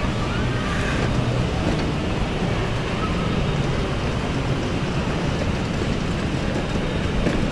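Steady, even rushing ambience of a large indoor hall, with faint distant voices now and then.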